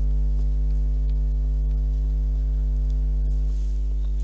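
Steady low electrical hum with evenly spaced overtones, unchanging throughout: mains hum picked up in the recording.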